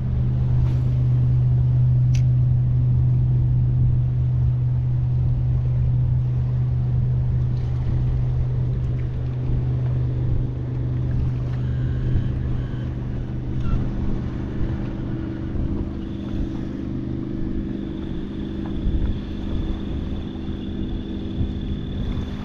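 Electric Minn Kota trolling motor running with a steady low hum. A faint high whine joins it about two-thirds of the way through.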